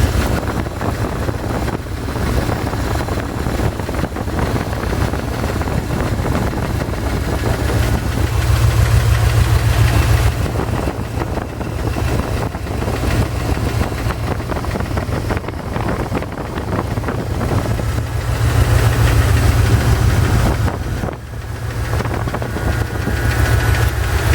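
Chevy ZZ4 350 small-block V8 running with a rapid, steady knocking or ticking, swelling louder a couple of times. The owner is unsure whether it is piston slap or a spun bearing; the noise remains after a valve lash adjustment.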